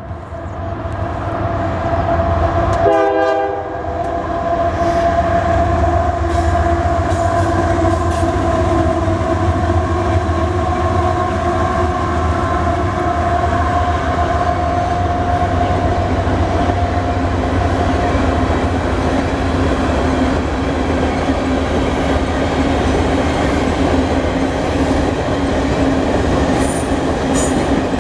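A freight train's Nathan K3LA five-chime air horn blowing a long chord as the lead GE diesel locomotive approaches, cut briefly about three seconds in, then fading over the rumble of the passing locomotives. The wheels of loaded hopper cars clatter steadily over the rail joints throughout.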